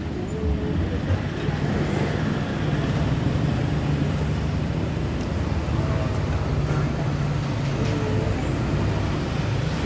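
Steady street traffic noise, a vehicle engine running close by, with faint voices in the background.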